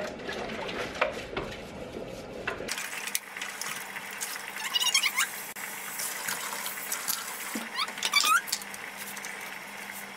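Kitchen tap running as a stainless-steel Thermomix mixing bowl is rinsed in the sink, with knocks of the bowl against the sink at first. Then a steady rush of water, with short rising squeaks about five and eight seconds in.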